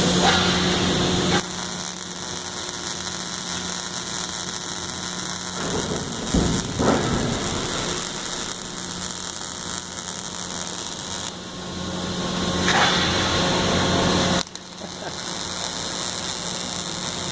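Electric welding arc crackling and sizzling over a steady hum from the welder, the crackle cutting in and out abruptly a few times.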